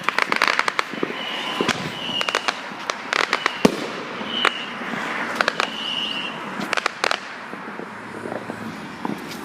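Neighbourhood fireworks going off: a steady run of bangs and crackling, with short whistles in between.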